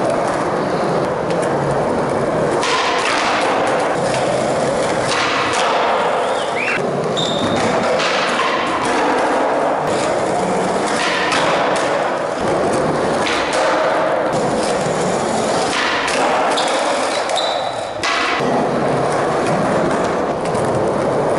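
Skateboard wheels rolling on a concrete floor, with repeated sharp board pops and landing thuds every second or two.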